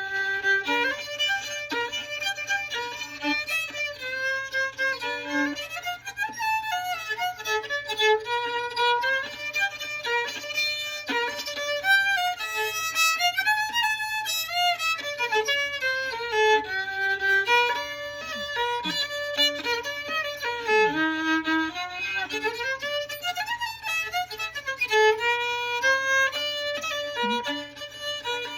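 Fiddle playing an old-time-style fiddle tune in the key of G, a quick melody running up and down with no pauses.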